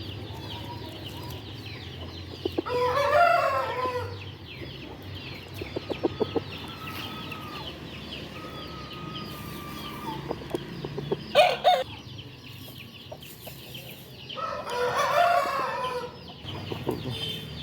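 Aseel roosters crowing twice, about three seconds in and again near the end, each crow lasting about a second and a half, with a short sharp call from the flock about eleven seconds in. Clucking and chatter from the chickens carry on underneath.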